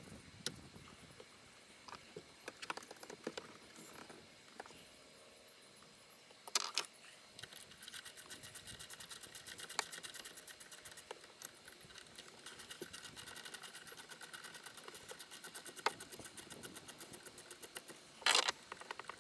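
Hand ratchet clicking in quick, even strokes for about ten seconds, loosening fasteners on a jet ski's carburetors. Scattered metallic clinks of tools come before it, and two louder clanks, one about six seconds in and one near the end.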